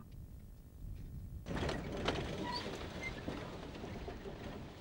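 Faint low hum, then about a second and a half in a steady rushing noise inside a four-wheel-drive vehicle's cabin.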